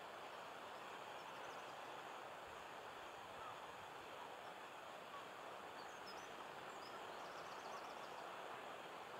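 Faint, steady outdoor background noise, with a few short, high bird chirps near the start and again about six to seven seconds in.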